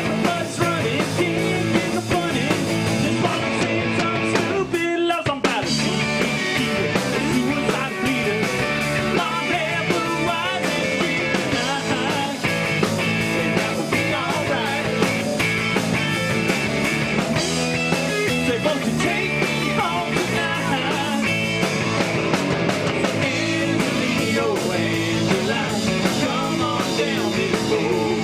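Live rock band playing, with electric guitars, bass, keyboard and drums, and a man singing lead.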